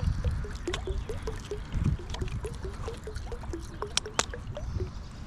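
Creek water trickling and pouring, with a steady run of short low blips about four a second. Low rumbling bumps come near the start and about two seconds in, and two sharp clicks come about four seconds in.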